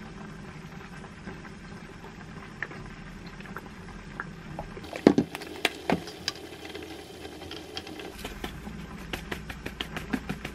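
Kitchen handling sounds while beef steaks on a stainless steel tray are seasoned: pepper and dried basil shaken from their containers over the meat. There is a cluster of sharp knocks and clicks about halfway through, and a quick run of light clicks near the end, over a low steady hum.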